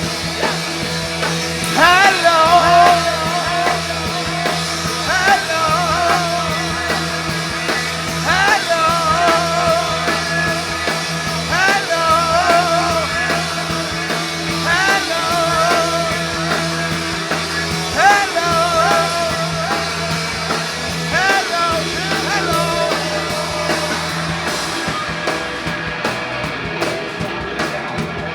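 Live rock band playing a wordless passage. A steady low bass drone runs under a lead line that swoops upward about every three seconds, and the sound thins out near the end.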